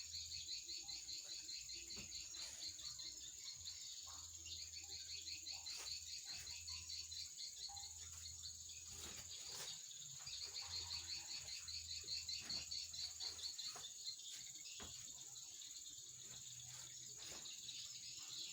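Insects chirping in rapid pulsed trills, about four to five pulses a second, over a steady high whine, with a few scattered light clicks.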